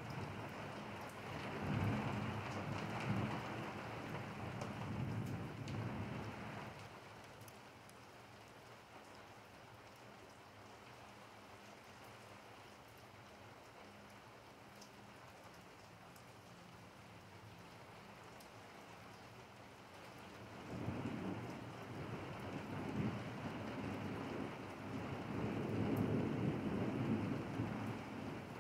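Steady rain falling on wet pavement, with two long rolls of thunder: one in the first several seconds and another from about twenty seconds in until near the end.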